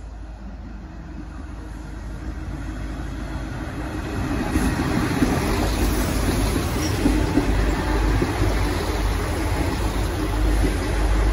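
A three-car V/Line Sprinter diesel railcar set arriving along the platform, its diesel engines and wheels on the rails growing louder over the first few seconds as the cars come close, then holding steady as they roll past.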